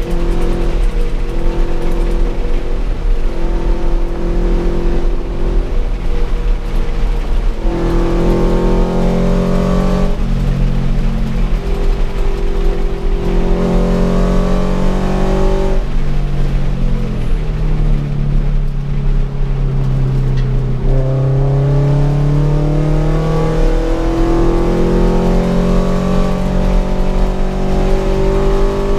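Toyota GT86's flat-four engine heard from inside the cabin under hard track driving, its pitch climbing under throttle and dropping back several times at shifts or lifts, then climbing steadily near the end.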